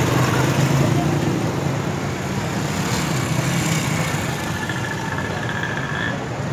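Busy street traffic noise with a nearby motor vehicle engine running low and steady, loudest in the first few seconds and then fading as it moves off. A thin, high steady tone sounds for a moment near the end.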